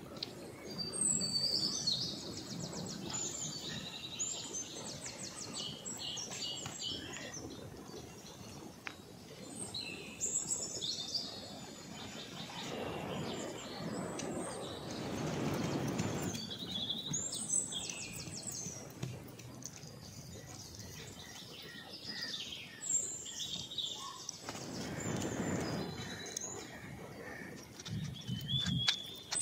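A bird singing four bursts of fast trills and whistles, several seconds apart, over a low rushing background that swells twice.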